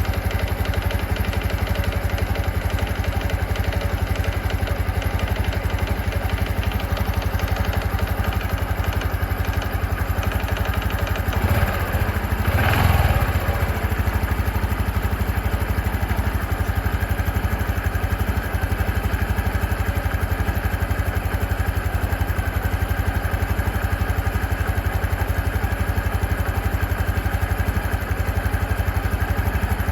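Honda CT125 Hunter Cub's single-cylinder engine running steadily just after a cold start, with an unusual noise that the owner cannot identify. It grows briefly louder about twelve seconds in.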